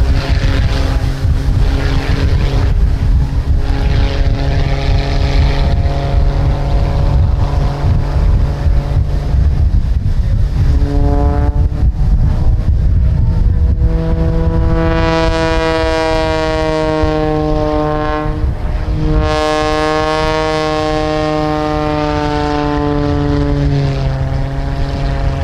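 Aerobatic monoplane's piston engine and propeller running overhead, the pitch changing with the manoeuvres and sliding down twice in the second half. Wind rumbles on the microphone underneath.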